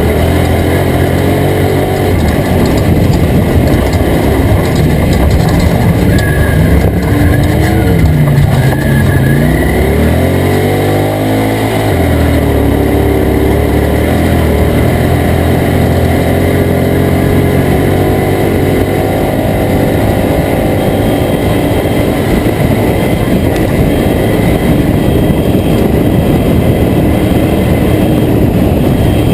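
Toyota Tacoma off-road race truck's engine running hard over steady noise from the truck. About eight seconds in, the engine pitch drops, then it climbs again over the next few seconds as the truck gets back on the throttle.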